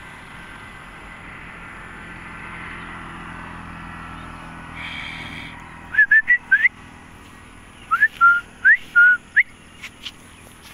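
A person whistling to call a dog: two quick runs of short, mostly rising whistle notes, the first about six seconds in and the second about two seconds later, over a steady background hiss.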